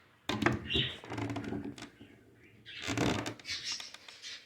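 Pliers and a screwdriver scraping and clicking against the crimped metal tabs of a shipping box as the tabs are pried and bent up. There are a few sharp clicks at the start, then two spells of rubbing and scraping.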